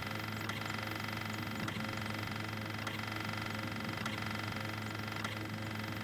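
Samsung washing machine running with a steady hum, and a faint click roughly every second and a bit.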